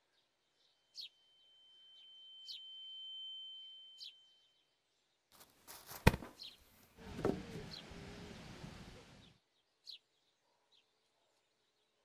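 Birds chirping now and then, with a steady high tone for a few seconds near the start. About six seconds in comes a single sharp, loud hit in a staged fistfight, followed by a couple of seconds of scuffling noise.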